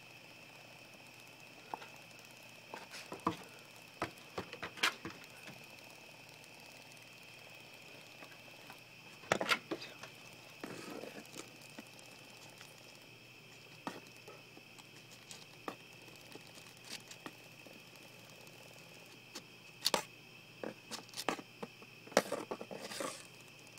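Steady high-pitched trill of crickets, with scattered sharp clicks and knocks over it, loudest in clusters about 3–5 seconds in, around 9–11 seconds, and again near the end.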